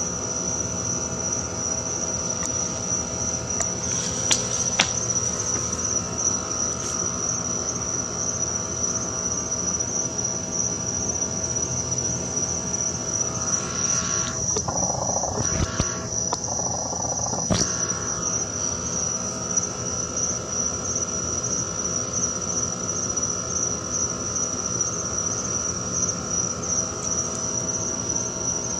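Crickets chirping in a continuous high, finely pulsing trill. A few sharp clicks sound about four seconds in and again around fifteen to eighteen seconds in.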